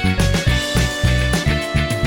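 Background music with a steady beat: plucked guitar notes over bass and drums.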